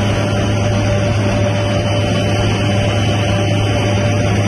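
Helicopter cabin noise in flight: a loud, steady drone of engine and rotor with a low hum and a constant whine.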